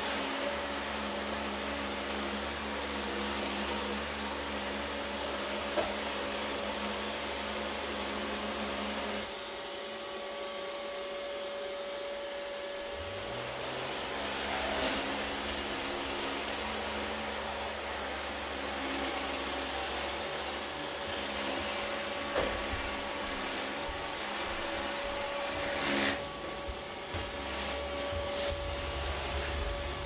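Neato D7 robot vacuum running, a steady machine hum from its suction motor and brush. About nine seconds in the sound changes and a low tone drops away; a few seconds later a low hum rises in pitch and settles. A few sharp knocks come later on.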